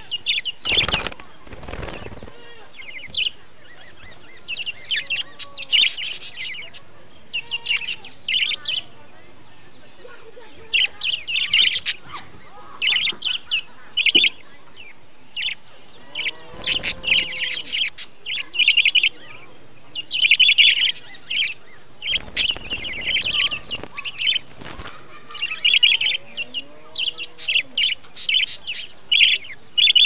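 Flock of budgerigars chattering in repeated short bursts of high chirps and warbles, with a few broader whooshing flutters of wings among them.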